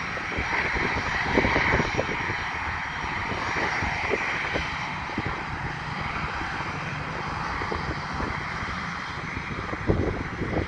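Airbus A320 jet engines running at taxi power as the airliner rolls along the ground, a steady whine and rush. Irregular low rumbling gusts of wind on the microphone, strongest near the end.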